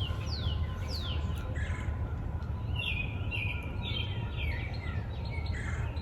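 Songbirds singing, a run of short whistled calls that slide downward in pitch, over a steady low rumble.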